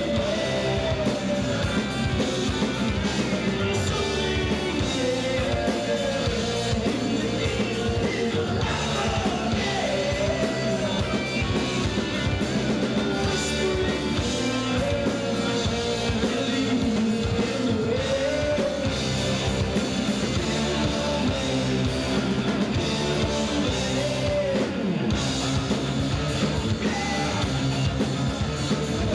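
A live rock band playing: electric guitars over a drum kit, with a lead melody line that bends up and down throughout.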